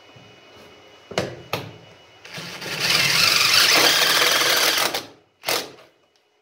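Cordless DeWalt impact driver driving a screw into the sheet steel of a wood stove's firebox seam. Two short pulls on the trigger, then one steady run of about three seconds, then one more short burst near the end.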